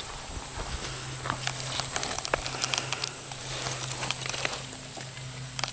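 Footsteps on dry ground: light, irregular clicks over a steady low hum and a faint, steady high tone.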